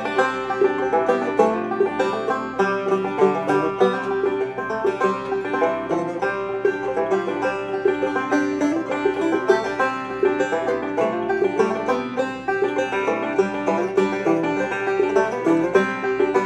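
Two five-string banjos playing a fiddle tune as a duet, one in clawhammer style and one in three-finger picking, a steady run of quick picked notes.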